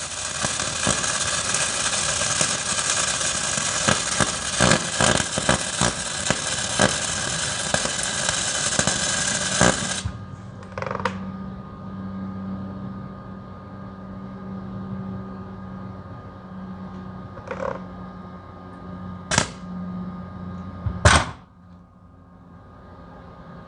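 Electric welding arc crackling and sizzling steadily for about ten seconds, then cutting off suddenly. A steady low hum follows, with a few short sharp clicks, and the hum stops near the end.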